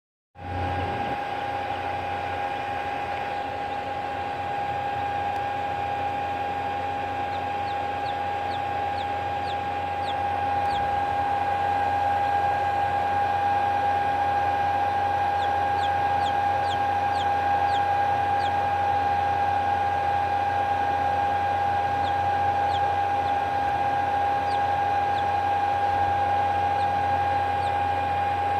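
A steady mechanical hum with a high whine runs throughout, the loudest sound. Over it, a hatching Australorp chick peeps faintly in several short runs of quick, high, falling cheeps.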